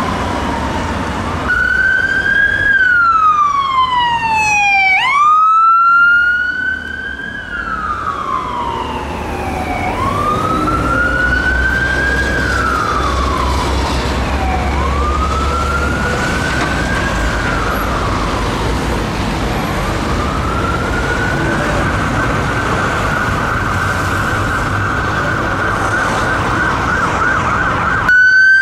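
UK ambulance siren wailing, its tone sweeping slowly up and falling again about every five seconds, with a quick down-and-up swoop about five seconds in. Near the end it holds a steady high tone. A low rumble of engine and traffic runs underneath.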